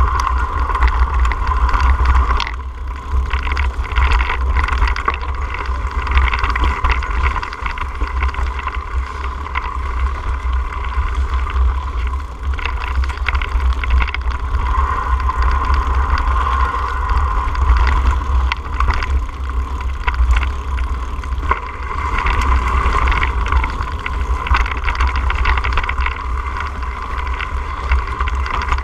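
Mountain bike rolling along a dirt singletrack, heard from a camera mounted on its handlebar: a steady low rumble with frequent short knocks and rattles as the bike goes over the rough ground.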